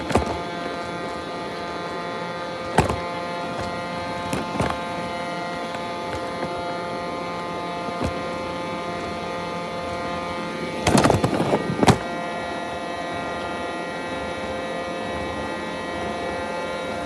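Roomba robot vacuum running with a steady motor whine, with a few separate knocks and a short burst of rattling knocks about eleven seconds in.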